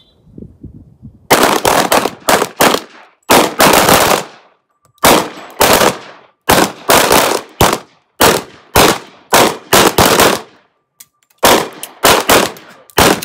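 Pistol shots from several shooters on a firing line, about thirty in an uneven string that begins about a second in, some shots close together and overlapping.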